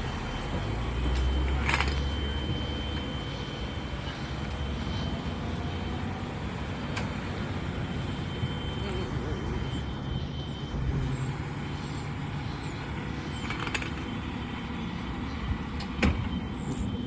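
Vehicle engines running with a steady low rumble that swells briefly about a second in, with scattered light clicks and one sharp knock near the end.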